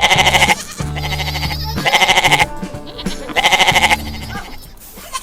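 Goats bleating loudly three times, each a short quavering call about half a second long, at the start, about two seconds in and about three and a half seconds in. The goats are being hand-fed and are taken for very hungry. Background music with steady low notes runs underneath.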